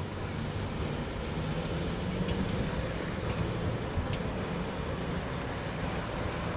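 Road traffic passing, with a trolleybus and a car on the move: a steady low rumble, broken by a few short high squeaks and a sharp tick about one and a half seconds in.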